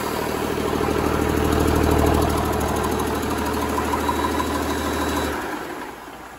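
Paccar PX-9 inline-six diesel engine running steadily while being test-run on a stand, then shut off a little after five seconds in, its sound dying away quickly.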